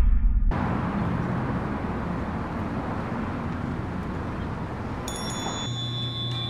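Steady outdoor ambient noise as someone walks up to a shop entrance. About five seconds in, bell-like chiming tones start ringing and keep on, joined by a low steady hum as the doorway is passed.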